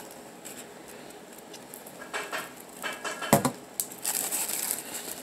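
Hands working with a glue bottle, paper and pom-poms on a tabletop: soft scratching and small taps. There is one sharper knock about three seconds in and a short rustle soon after.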